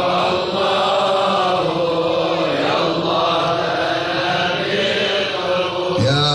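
Slow Islamic devotional chanting (dhikr) in Arabic, with long held notes that glide slowly between pitches.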